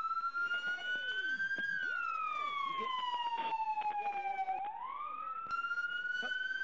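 Police car siren sounding a slow wail: the pitch climbs, then sinks slowly over about three seconds, and climbs again about two-thirds of the way through.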